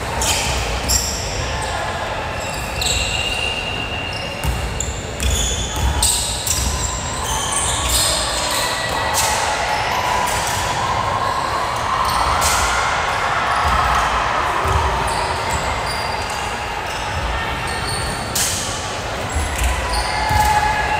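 Volleyballs smacking and bouncing on a hardwood gym floor in a series of sharp hits, with short high squeaks and voices echoing around the large hall.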